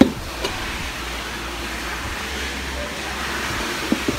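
Steady hiss and low hum of a workshop, with a sharp knock at the start and a few lighter knocks near the end. The knocks are tools striking the rim as a new motorcycle tyre is levered onto it.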